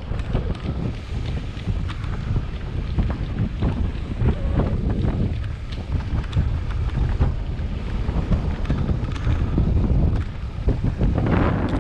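Wind buffeting the microphone over a low rumble, with rapid clicks and rattles from an electric mountain bike riding downhill over a rough trail; a brief, louder hiss comes near the end.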